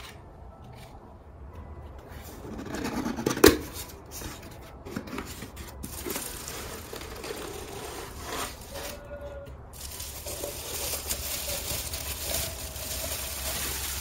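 Cardboard box and plastic bubble wrap rustling and crinkling as a glass is lifted out and unwrapped, with one sharp knock about three and a half seconds in.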